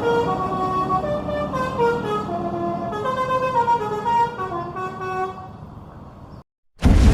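Bus telolet horn, a multi-tone air horn playing a quick tune of changing notes, fading out about six seconds in. After a moment of silence, a sudden loud rushing burst starts near the end.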